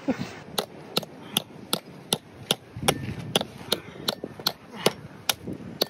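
Claw hammer striking a metal tent peg, steady metallic clinks about two and a half times a second, driving the peg into hard ground that resists it.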